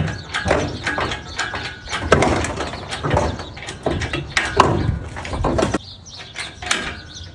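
Irregular metallic knocks and clanks at uneven spacing, the sound of car parts shifting and bumping as a stripped Miata's body and drivetrain are moved apart on a hoist and jack, easing off a little before the end.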